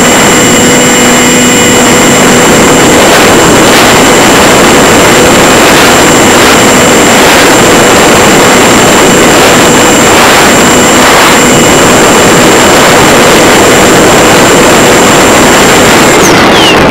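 Electric motor and propeller of a Multiplex EasyStar RC plane heard from a camera mounted on the airframe: a loud steady high whine over rushing air noise. Near the end the whine slides down in pitch as the motor winds down.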